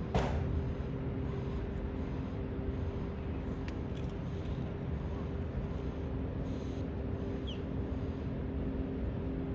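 Steady low engine rumble with a constant hum, most likely a large motor yacht's engines running as it moves through the harbour. A brief hiss right at the start.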